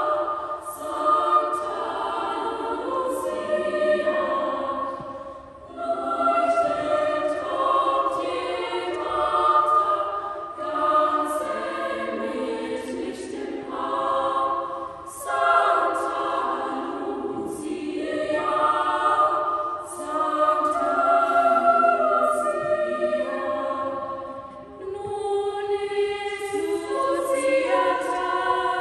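Girls' choir singing in a cathedral, the phrases broken by short pauses for breath.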